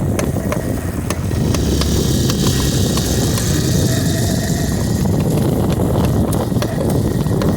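DK160 motorcycle running with the rear wheel turning, a steady low engine sound overlaid by irregular sharp clicks several times a second: the strange rear-wheel noise whose cause the owner does not know.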